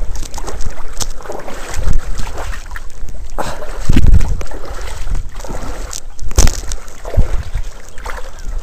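Shallow water sloshing and splashing as a landing net is worked through it to scoop up a hooked grey mullet, with several sharp splashes and knocks. Low gusts of wind rumble on the microphone.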